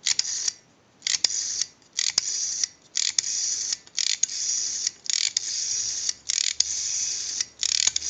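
Rotary dial of an early Automatic Electric candlestick telephone, wound and let go again and again, whirring back after each pull about once a second, with small clicks between. The digits are dialed in turn, so the returns grow longer toward the higher numbers. The dial is being pulse-tested on a dial analyzer.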